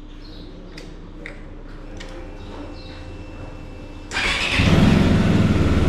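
A Zongshen RX3 motorcycle's 250cc single-cylinder engine being started: a few light clicks as the ignition key is turned, then about four seconds in the electric starter cranks and the engine catches and runs steadily at idle.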